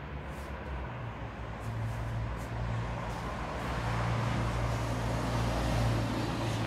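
Steady low rumble of road traffic, growing a little louder about two seconds in.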